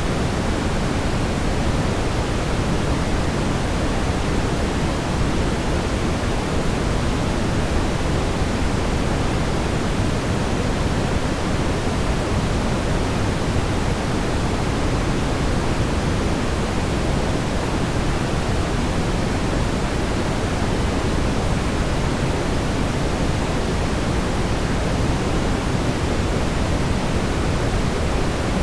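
Steady brown noise: an even, unbroken rumbling hiss, strongest in the lows and falling away toward the highs, without change.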